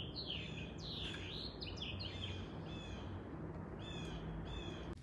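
Songbirds chirping: a run of short, quick sweeping chirps repeated every second or so, over a faint steady low hum.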